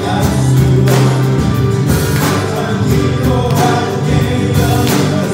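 Live church worship band playing a hymn: voices singing over acoustic guitar, drum kit, bass and keyboard.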